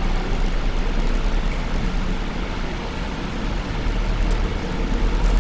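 Steady rushing background noise with a low hum underneath, even throughout with no distinct events.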